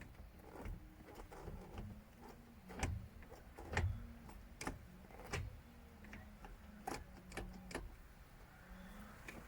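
Irregular light clicks and knocks from hands working on the gear shifter area inside the car, with two louder knocks about three and four seconds in, over a faint low hum.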